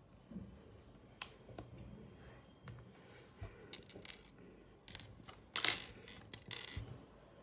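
Loose plastic Lego pieces clicking and clattering against a glass tabletop as a hand picks through and moves them. The loudest is a short dense rattle a little over halfway through.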